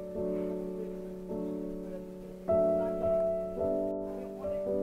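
Background music: slow piano chords, a new chord struck about once a second and left to ring.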